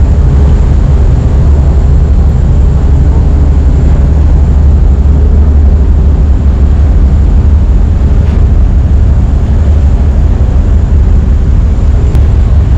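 Car ferry's engines running: a loud, steady low rumble.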